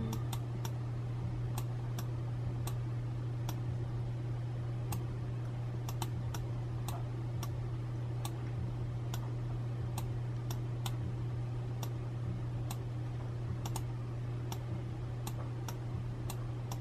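Computer mouse clicking at irregular intervals, about one or two clicks a second, while letters are dragged and spaced on screen, over a steady low hum.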